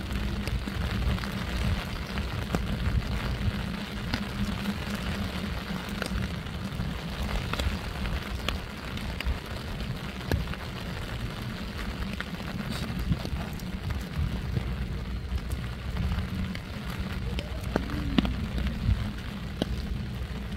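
Steady rushing outdoor noise with a heavy, unsteady low rumble and a few faint ticks.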